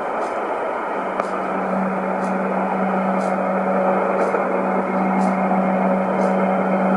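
Shortwave receiver tuned to a station with no programme on the air: steady static hiss from the radio's speaker with a low steady hum tone, which grows a little stronger after about a second and a half.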